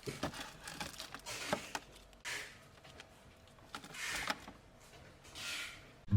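Faint handling noise: a few light clicks, then three soft rustles spaced a couple of seconds apart.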